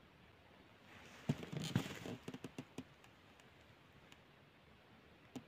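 A knock, then a quick run of light taps and clicks, with a few scattered ticks and one sharp click near the end. These are handling noises from the angler's ice-fishing tackle and the perch he has just caught.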